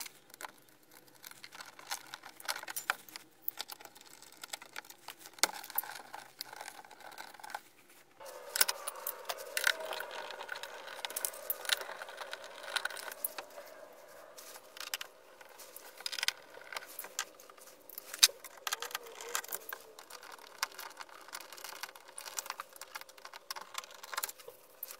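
Screwdriver undoing the screws of a Ford Mondeo Mk3 front door card: irregular clicks, rattles and scrapes of the tool, screws and plastic trim. A steady whine sets in about eight seconds in and runs on nearly to the end.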